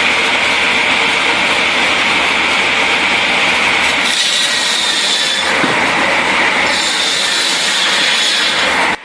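Loud, steady noise of a machine cutting and shredding wood, with a harsher, hissier edge about four seconds in and again from about seven seconds in.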